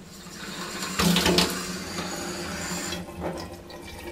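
Water running from a TOTO TKJ31UF3 single-lever kitchen mixer faucet into a stainless steel sink, a test run of its newly fitted THY582N cartridge. The flow starts as the lever is lifted, is strongest about a second in, and stops abruptly about three seconds in when the lever is closed.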